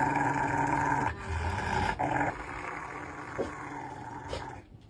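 Adult Rottweiler growling in a rough, drawn-out grumble, loudest for the first two seconds and weaker after.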